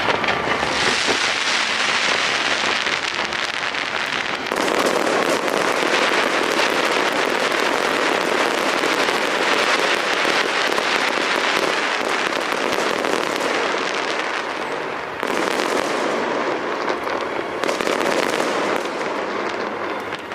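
Aerial fireworks going off in quick succession, a dense, continuous crackle of many small bursts, with fresh waves of bursts starting about a quarter of the way in and again twice near the end.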